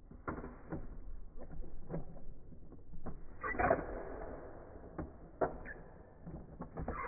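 Plastic clicks and knocks from a push-button toy fighting stand as its buttons are pressed and the figures' arms swing and strike each other, with a louder clatter about halfway through.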